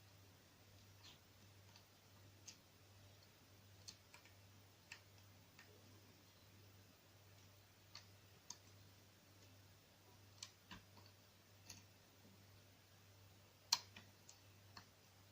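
Faint, irregular small metallic clicks from a Sparrows Black Flag dimple pick working the spool pins of a Mul-T-Lock dimple lock held in a false set. The loudest click comes near the end. A faint steady low hum runs underneath.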